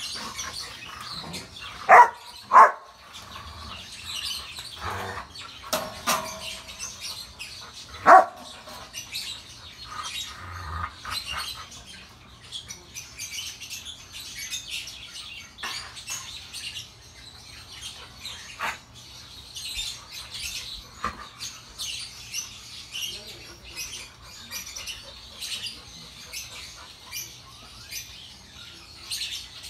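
Rottweilers barking during play: two loud barks about two seconds in and another around eight seconds in, with a few quieter ones between. Birds chirping throughout.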